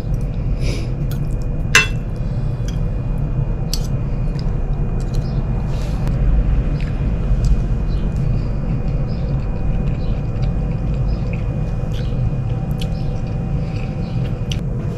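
Cutlery clinking against a plate in small scattered clicks while eating, with one sharper clink about two seconds in, over a steady low background hum.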